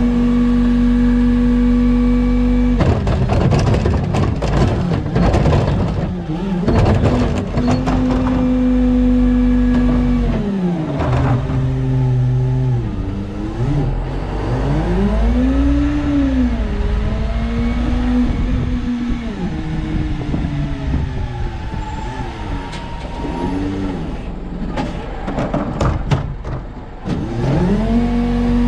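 New Way Mamba automated side-loader garbage truck: the engine is held at a steady raised speed while the arm works, with a stretch of clattering as a cart of organics is dumped into the hopper. Its pitch then dips and rises as the truck moves on, and near the end it ramps back up to the same steady speed for the next cart.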